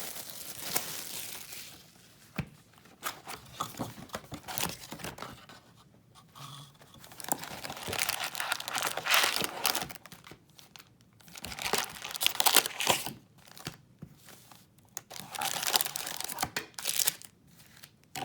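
Plastic wrap being torn and crinkled while a sealed box of hockey cards is opened, in several bursts of crackling rustle with short quiet gaps between them.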